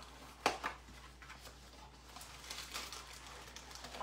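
Kitchen handling sounds while flour is measured out for a roux: a sharp knock about half a second in, a smaller one just after, then quieter small handling noises.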